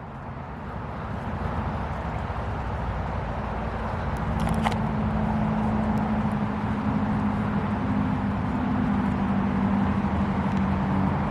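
A motor engine's steady drone, growing louder over the first few seconds and then holding.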